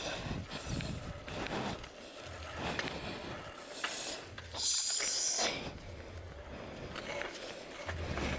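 Bicycle rolling over a paving-block street: tyre noise and rattling from the bike, with wind buffeting the microphone in low rumbles. A brief loud hiss about five seconds in.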